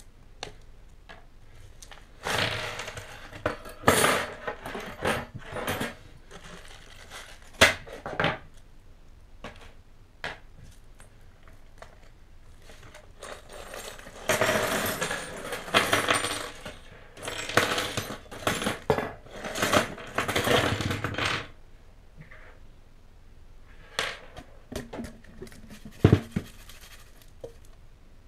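Packing tape being torn from a cardboard mailing tube, then metal Meccano parts (angle girders, plates and small pieces) sliding out of the tube and clattering onto a table in a long rattling spill about halfway through. A few single clinks of metal parts follow near the end.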